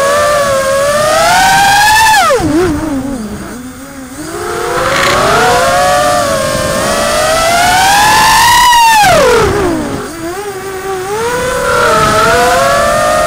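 Small multirotor drone's electric motors and propellers whining, heard from the drone's own camera, the pitch rising and falling with throttle: it climbs, drops sharply about two and a half seconds in, climbs slowly to a peak about nine seconds in, dips sharply again, then rises once more.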